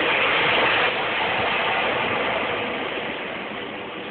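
Homemade sawdust-burner central heating rig running: a steady rushing hiss with a faint hum underneath, growing gradually quieter.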